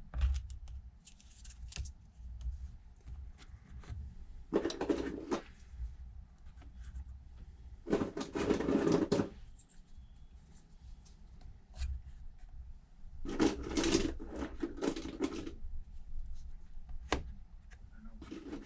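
Small clamps being handled and fitted to hold down a freshly glued tablet screen: four rasping, scraping bursts about a second long, with a few sharp clicks between them.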